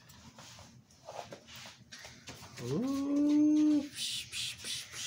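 Faint taps of plastic action figures being handled on a wooden table. About two and a half seconds in comes one long drawn-out 'ooh', a whine-like call that rises and then holds steady for about a second. A short hiss follows.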